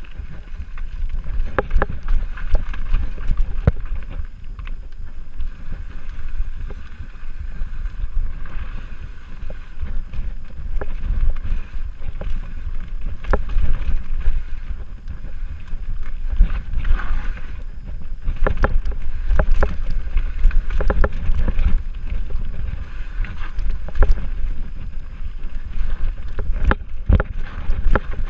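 Mountain bike riding down a rough dirt and rock trail: a steady low rumble of wind buffeting the microphone and tyres on dirt, broken by frequent sharp knocks and rattles as the bike hits rocks and bumps.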